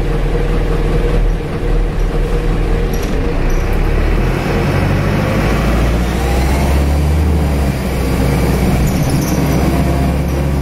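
Optare Solo bus's Mercedes four-cylinder turbo-diesel engine running under the floor, heard inside the saloon, with a turbo whistle. The engine note rises steadily from about five seconds in as the bus picks up speed.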